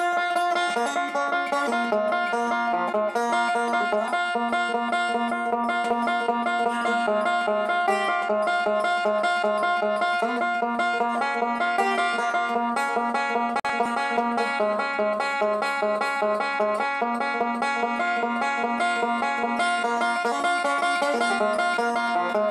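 Gold Tone resonator banjo played solo with finger picks: a steady stream of fast picked notes in rolling patterns, with one high note ringing out again and again.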